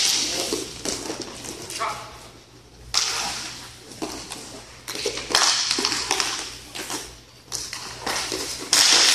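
Indoor rink hockey play: sticks and the puck clacking and slapping on the court and boards in sharp bursts, with short shouts from players.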